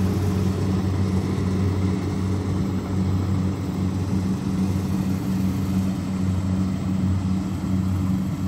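Kubota DC60 combine harvester running steadily while it harvests rice: a constant low engine drone from its Kubota V2403 diesel, with no change in speed.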